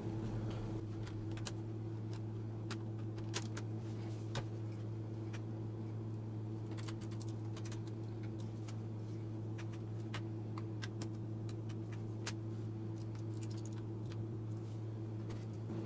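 Scattered light clicks and ticks of a Lenovo B570 laptop's replacement LCD panel and plastic lid being handled and fitted together, over a steady low hum.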